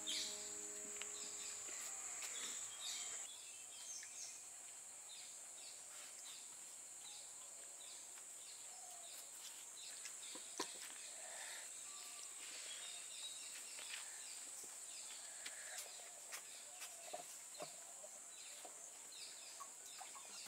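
Quiet rural ambience: a steady high-pitched insect buzz with scattered faint bird chirps and a few small clicks.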